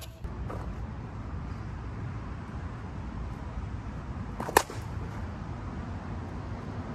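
A composite slowpitch softball bat, the Onyx El Jefe 240, hitting a softball once about two-thirds of the way in: a single sharp, loud crack with a short ring.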